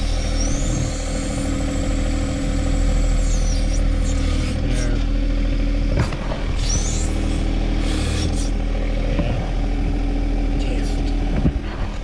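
John Deere 1025R compact tractor's diesel engine running steadily, driving the 260 backhoe's hydraulics, with a few brief high whines over the engine. A hydraulic hose at the backhoe valve has rubbed through and is leaking.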